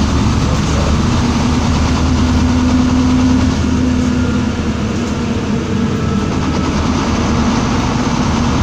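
Inside a city bus driving along a street: a steady engine hum with road and body rumble, and no sudden events.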